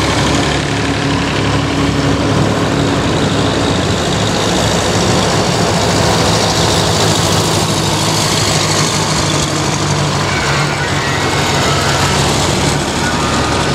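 Vintage farm tractors, among them a little grey Ferguson, driving past one after another with their engines running steadily, the nearest passing close near the end.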